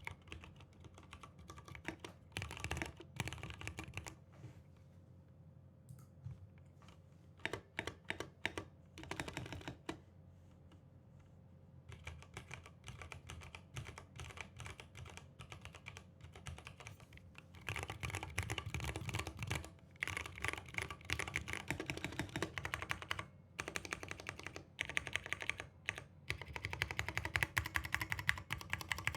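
Mechanical keyboard being typed on in bursts of rapid key clicks with short pauses, the typing dense and steady through the second half. Its switches are not yet lubricated, and the owner finds the springs loud.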